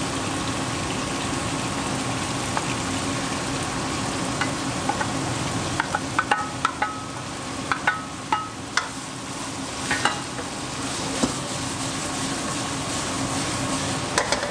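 Shredded vegetables and pork strips sizzling in a hot wok as they are tipped in and stir-fried with a wooden spatula. A run of sharp clicks and knocks from the spatula against the pan and dish comes in the middle, over a steady hum.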